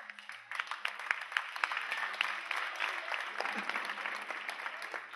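Audience applauding: many hands clapping at once, starting suddenly and keeping up steadily.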